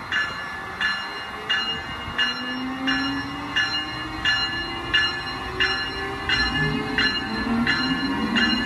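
Amtrak ACS-64 electric locomotive moving slowly with its bell ringing steadily, about one and a half strikes a second, over a whine from the locomotive that rises in pitch as it gathers speed.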